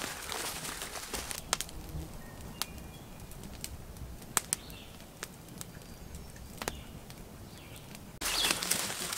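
Footsteps and rustling through forest leaf litter for about the first second and a half. Then a smoky smudge fire of green wood crackling, with single sharp pops every second or so and faint birds calling behind. Louder rustling starts suddenly near the end.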